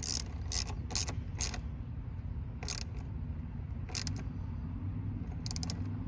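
Hand ratchet wrench clicking in short, spaced strokes as it tightens the clamp nut on a car battery's negative terminal.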